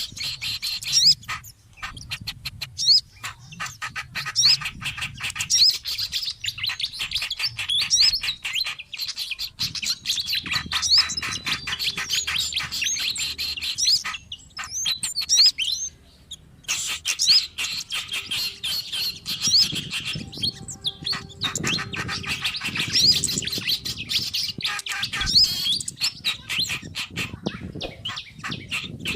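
Bird-lure recording of small songbirds calling in an agitated way: dense, rapid chirping and chattering with quick sweeping notes, used to draw in wild birds. The calls break off briefly about nine seconds in and again around fifteen seconds in.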